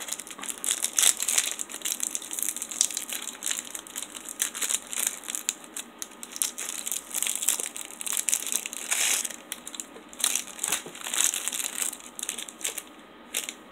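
Clear plastic wrapper of a pack of ration chocolate biscuits crinkling and crackling as it is pulled open and unwrapped by hand, in irregular crackles that die down near the end.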